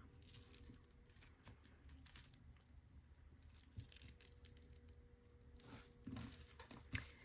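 Faint clinking and jingling of a silver-tone metal dangle bracelet being handled, a scatter of small light ticks of metal on metal.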